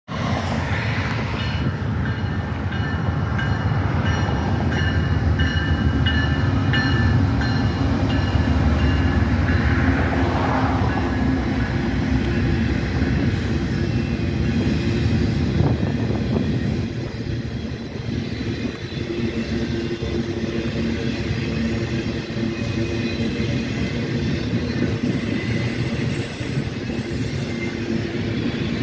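CSX mixed freight train rolling past: a steady, heavy rumble of wheels on rail, easing slightly after about 17 seconds as the cars keep going by.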